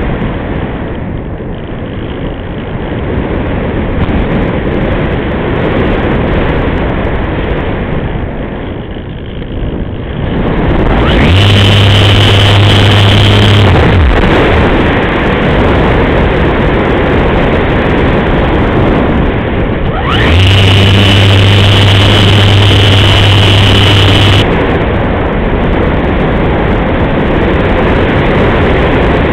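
Electric motor and propeller of a Multiplex Easy Glider model sailplane powering up twice, about eleven seconds in for some three seconds and again about twenty seconds in for about four seconds. Each burst starts with a quick rising whine and then holds one steady pitch, over loud, steady rushing airflow on the onboard camera's microphone.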